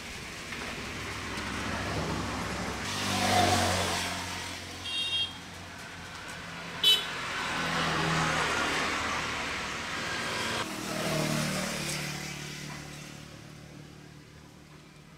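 Motor vehicles passing one after another, their engine sound swelling and fading three times, with short horn beeps about five seconds in and a sharper, louder beep about seven seconds in.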